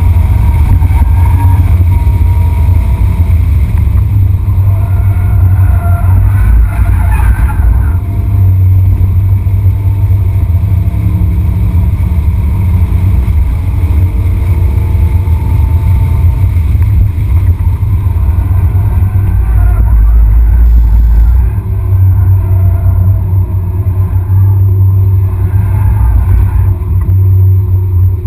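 BMW E46 330i's inline-six engine driven hard on a race track, heard from inside the cabin over a loud, deep drone. Its revs climb and drop repeatedly through the lap, with one climb about seven seconds in that cuts off sharply.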